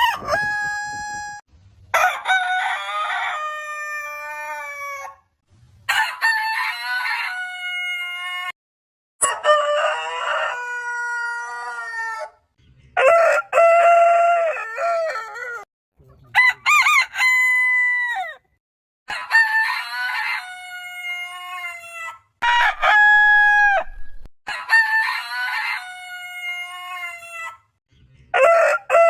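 Roosters crowing, one crow after another: about nine full cock-a-doodle-doo calls, each two to three seconds long and often ending on a long held note, separated by abrupt short silences where the clips are spliced together.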